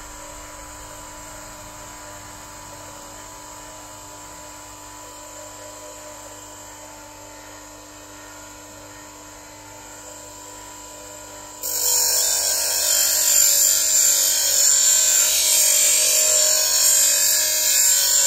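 Bench grinder wheel spinning with a steady whine. About twelve seconds in, a steel blade is pressed hard against the stone, and a loud, hissing grind follows as the bevel is ground to about 25 degrees.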